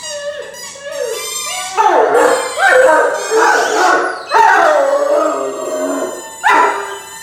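Great Dane howling in a run of wavering calls: a few short ones, then long, louder howls from about two seconds in. The howling is set off by a favourite toy ball.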